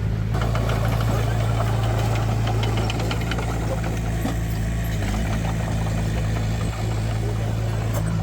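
Heavy diesel construction machine engine running steadily, with scattered metallic clanks and rattles over it.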